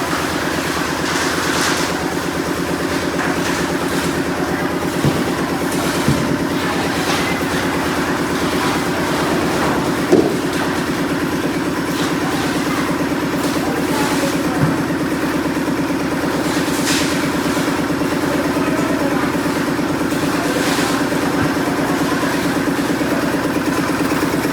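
A machine engine running steadily at an even, fast beat, with a few sharp knocks about 5, 6, 10 and 15 seconds in.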